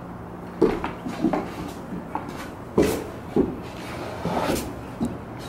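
Pointe shoes knocking and scuffing on a wooden deck as a dancer steps and turns: about six irregular sharp taps, with a longer scrape a little past the middle.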